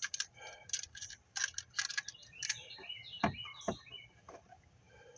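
Scattered light clicks and taps of hand tools and engine parts being handled in an engine bay, with two duller knocks about three seconds in. Birds chirp faintly in the background.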